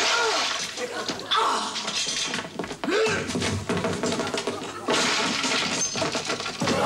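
A crash of breaking wood as someone smashes through a wardrobe door, among several sudden thuds and knocks, with voices.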